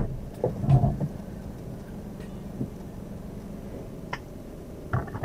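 Steady low hum inside a stationary Daihatsu Ayla 1.0 with its three-cylinder engine idling. A car door shuts with a sharp thump right at the start, and a few faint clicks follow later.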